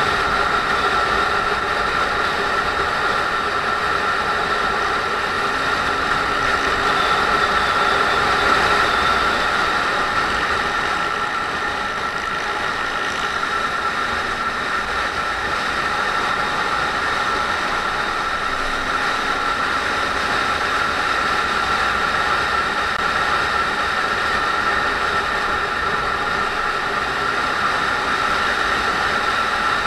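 Riding noise from a Honda MSX125: its 125 cc single-cylinder engine running at a steady pace, mixed with wind rush on the camera microphone. It eases off slightly about twelve seconds in.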